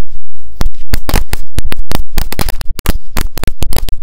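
A bundle of Korsar-1 firecrackers going off in a rapid, irregular string of very loud, sharp bangs, many to the second.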